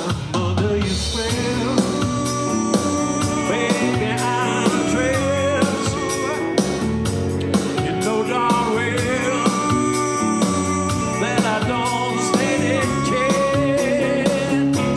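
Live rock band playing: electric guitar and bass guitar, with a man singing lead over a steady beat.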